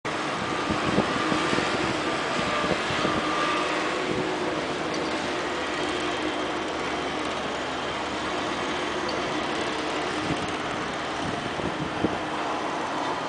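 Steady mechanical engine noise with a low hum, and a few short knocks.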